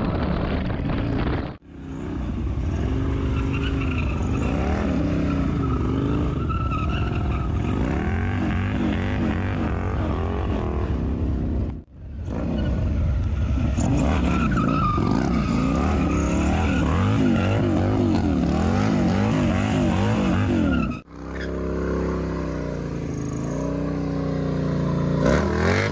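Motorcycle engine revved hard again and again, its pitch swinging up and down, while the rear tyre spins in a burnout. The sound breaks off briefly three times.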